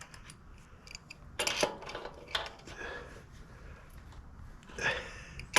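Scattered light metallic clicks and clinks of tools and hardware being handled at an e-bike's rear axle, with a few sharper knocks about a second and a half in, near the middle and near the end.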